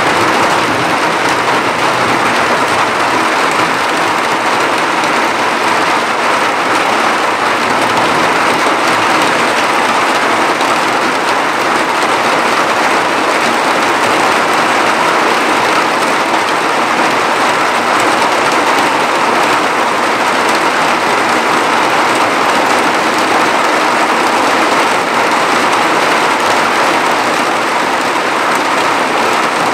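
Heavy cloudburst rain falling hard and steadily, an even hiss that does not let up.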